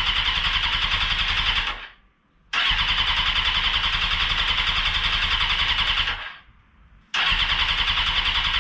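Electric starter cranking the 1996 Suzuki GSX-R750 SRAD's inline-four engine in three long bursts with short pauses between them, the engine turning over evenly but never firing. There is no spark, which the owner traces to the signal-generator wires being swapped over in the replacement harness.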